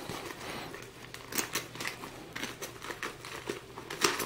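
Paper mailing envelope crinkling as it is handled and cut at the edge with small U-shaped thread snips, with a few short sharp snips and crackles.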